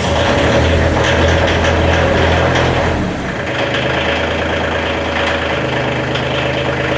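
Kioti compact tractor's Daedong diesel engine idling steadily just after starting up easily; its note drops slightly about three seconds in.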